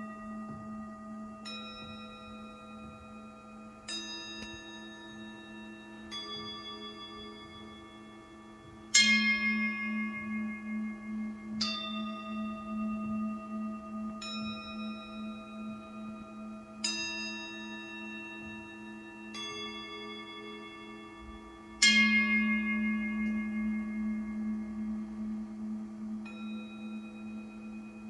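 Struck bell-like tones, one roughly every two and a half seconds, each ringing out slowly over a steady, wavering low hum. The two loudest strikes come about a third of the way in and again about three quarters of the way through.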